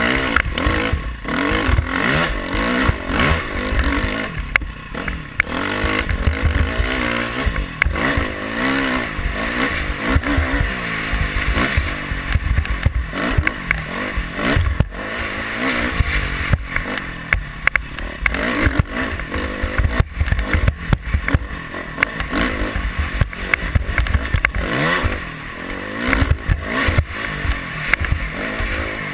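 Dirt bike engine running hard onboard, its pitch rising and falling constantly as the rider works the throttle over a sandy trail. Frequent knocks and clatter from the bike over bumps, with a heavy low rumble of wind buffeting the microphone.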